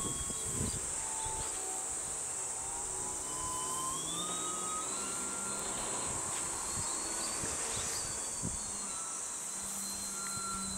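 Electric brushless motor (ECO 2820, 940 KV) and 13-inch propeller of an RC aerobatic plane whining in flight. The whine slides down in pitch in the first few seconds, climbs back about halfway through, and keeps shifting up and down.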